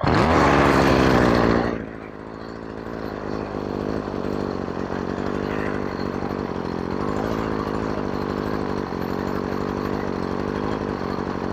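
Stihl FS56RC string trimmer's small two-stroke engine running on a freshly installed replacement carburetor. It runs fast and loud for nearly two seconds, then drops to a steady idle.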